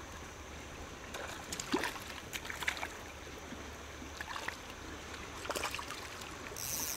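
Water trickling and lapping around a fishing kayak, broken by several short splashes as a hooked fish is reeled in toward the boat, with a brief high hiss near the end.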